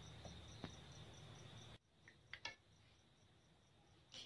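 Near silence, with faint high cricket chirping pulsing about four times a second and a few soft clicks.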